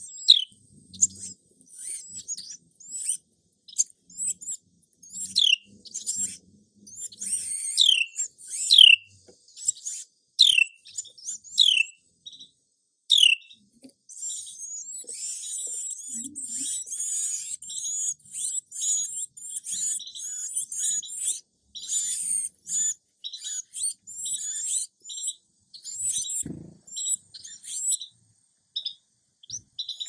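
Nestling birds begging from the nest: high, thin chirps, each sliding downward, come one after another. About halfway through they turn into a dense, almost unbroken chatter of begging calls that thins out near the end.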